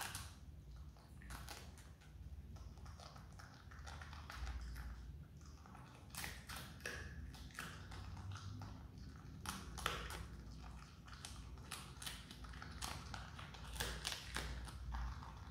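Himalayan marmot biting and gnawing into a whole red cabbage: irregular crisp crunches and clicks of its teeth on the leaves, coming more often in the second half.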